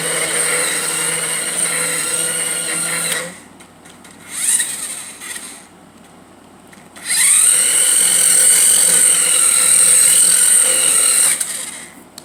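Small electric drive motor of a toy remote-control car whining as it drives, in two long runs with a short burst between; the second run rises in pitch as it spins up.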